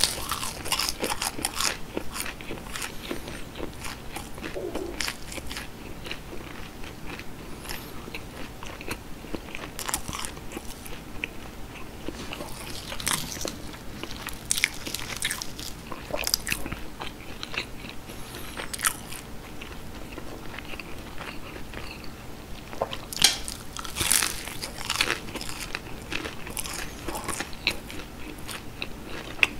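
Close-miked eating of fried breadcrumb-coated cheese sticks: crisp crunching bites into the crust and wet chewing, in louder crunchy clusters near the start, about a third of the way in, and again past the middle.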